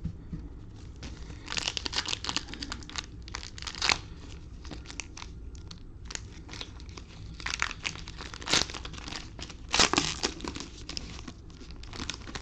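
Cellophane wrapper of a football-card cello pack being torn open and crinkled in the hands, in several irregular bursts of crackling with the loudest near the middle and about ten seconds in.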